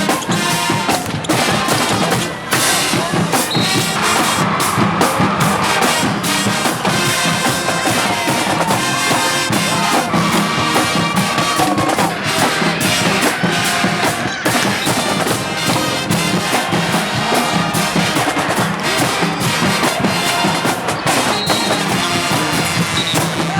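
High school band playing a tune with brass and drums, the drums keeping a steady beat.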